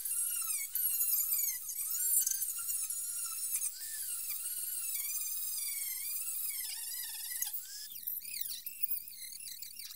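Cordless rotary tool with a small abrasive wheel grinding surface rust off a car's steel underbody: a high-pitched whine whose pitch keeps dipping and recovering as the wheel is pressed into the metal, sagging lowest a little after the middle.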